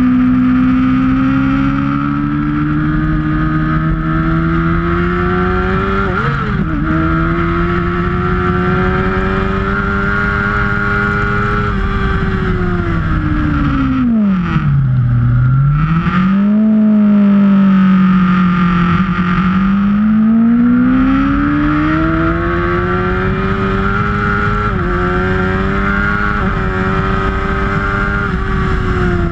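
Sportbike engine heard from the bike's own onboard camera at track speed, its note climbing and falling with the throttle over steady wind noise. The pitch dips briefly about six seconds in, drops sharply about halfway through as the bike slows, then climbs steadily again with another short dip near the end.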